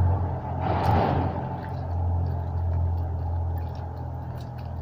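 Homemade slime being stirred with glue: a short rustling squelch about a second in, then faint sticky clicks, over a steady low hum.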